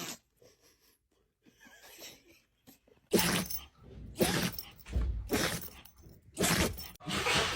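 A dog sneezing several times in a row, about five sharp sneezes roughly a second apart, starting about three seconds in after a quiet stretch.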